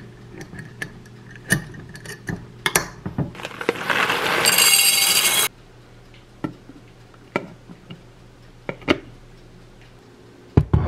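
Kitchen handling sounds while baking bread: scattered clinks and knocks of dishes and utensils, with a loud rushing sound that builds from about three and a half seconds in and cuts off suddenly about two seconds later.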